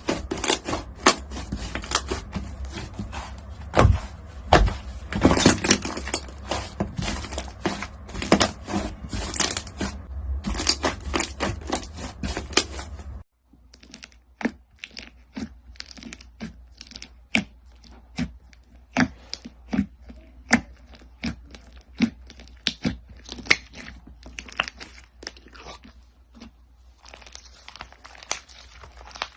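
Crunchy slime being squeezed and kneaded by hand, giving dense crackling and popping. About halfway through the sound cuts off suddenly and gives way to sparser, separate crackles.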